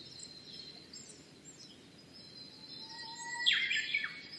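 Small birds chirping and calling, with a louder call of quick down-slurred notes about three and a half seconds in, over a thin steady high tone.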